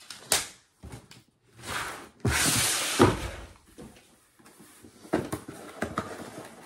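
Cardboard packaging and plastic toy parts being handled: a loud rustle just after two seconds in ends in a sharp knock, and light clicks and taps follow later.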